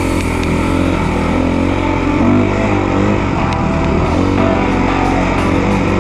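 Rock music with electric guitar, over the steady running of a dirt bike's engine.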